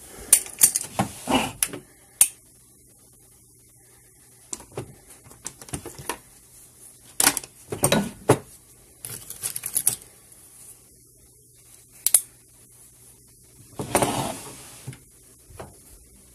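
Pens and markers clicking and rattling against each other as a hand rummages through a desk drawer, in several bursts of clatter, with a longer rustle near the end.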